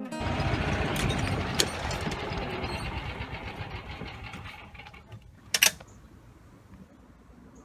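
Golf cart running along a paved path, its motor and body making a fast, even chatter that fades away over about five seconds. A sharp click comes about a second and a half in, and a louder double click near the end.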